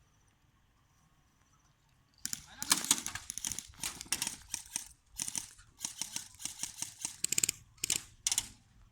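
Airsoft guns firing in rapid bursts of sharp clicking pops, starting about two seconds in and coming in several bursts one after another.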